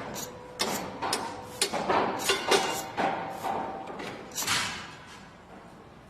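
A run of irregular knocks and thuds, about a dozen in four or five seconds, dying away near the end.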